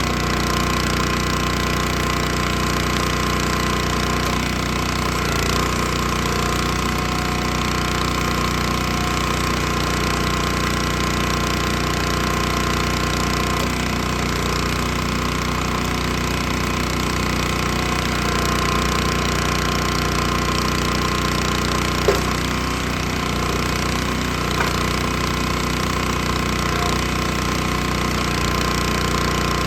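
Gas engine of a hydraulic log splitter running steadily at constant speed, with one short sharp crack about two-thirds of the way through.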